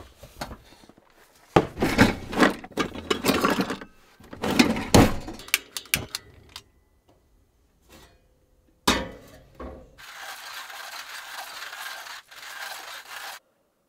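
Kitchen handling sounds in a small camper: a wooden cabinet is opened and things are rummaged, knocked and clattered for the first few seconds, then a few clicks as a gas stove burner is lit with a long lighter. A sharp knock comes about nine seconds in, then an even rushing noise for about three seconds that cuts off near the end.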